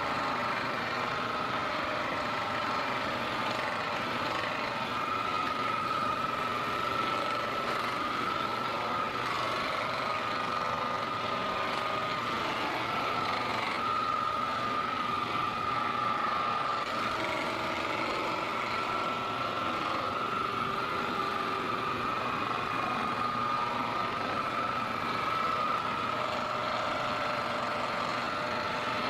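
A small electric motor running steadily: a continuous buzz with a steady whine.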